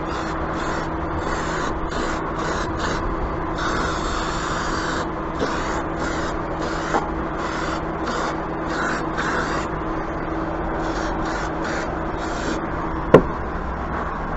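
Rhythmic rubbing or scrubbing strokes, about two or three a second, over a steady low hum. A single sharp knock comes near the end.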